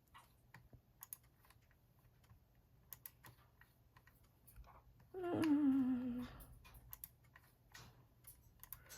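Scattered light clicks and taps of a computer keyboard and mouse, as a page is set up to print. About five seconds in, a short hummed 'mm' falling in pitch.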